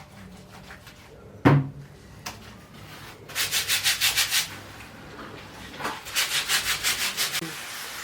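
Fast, even scrubbing strokes, rubbing in two bouts of about a second each, after a single knock.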